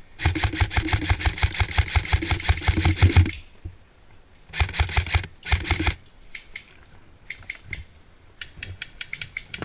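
Airsoft rifle firing on full auto: one long burst of rapid shots lasting about three seconds, then two short bursts about a second apart. Fainter rapid airsoft fire follows near the end.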